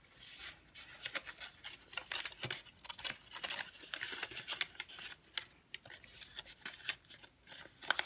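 Origami paper rustling and crackling under the fingers as it is folded and creased flat, a run of many short, irregular crisp crinkles.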